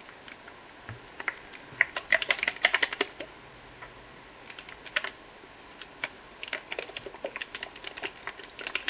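Plastic hair-dye applicator bottle being shaken to mix the colouring cream with the developer, giving quick runs of clicking and rattling. The densest runs come about two seconds in and again near the end.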